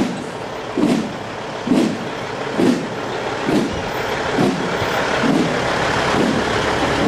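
A slow, steady drum beat, about one stroke a second, growing fainter in the second half as a big truck's diesel engine runs steadily close by.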